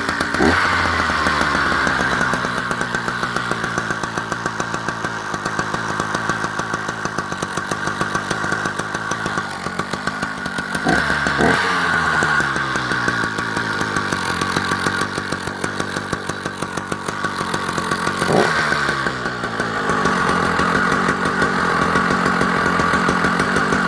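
Vintage Husqvarna 280S 77cc two-stroke chainsaw engine, bar and chain removed, idling loudly. It is briefly revved three times, near the start, about halfway and about three-quarters through, each time falling back to idle.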